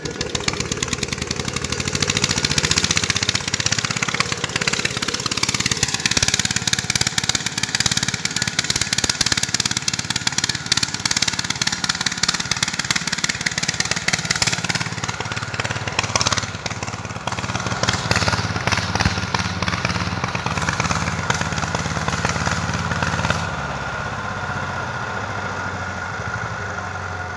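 A vehicle engine running loud and close with a rapid, even firing beat; its pitch sinks and then rises again in the first half, and it eases off a little near the end.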